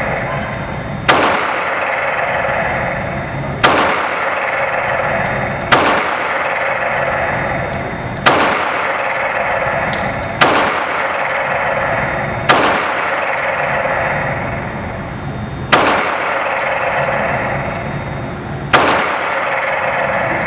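Eight single shots from a CZ 97B .45 ACP pistol in slow fire, about two to three seconds apart, each ringing out briefly, over a steady rushing background noise.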